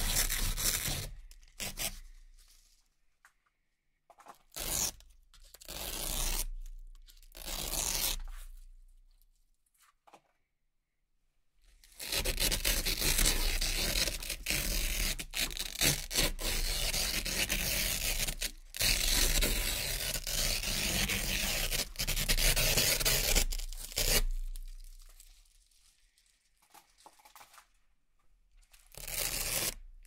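Velcro hook-and-loop strips being ripped apart in a series of pulls: a few short rips, then a long, nearly continuous run of ripping lasting about twelve seconds, and one last short rip near the end.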